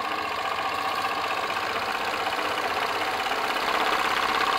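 PM Research glass Stirling engine running fast and freely with the Baker fan's belt load slackened: a rapid, steady mechanical clatter that grows slightly louder near the end.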